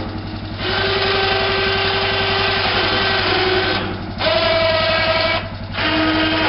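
Winch motors on an ATV's homemade dump bucket whining in short runs, working the bucket's raise and dump mechanism. The whine starts about half a second in, stops briefly about four and five and a half seconds in, and changes pitch after each break. Under it the ATV engine idles steadily.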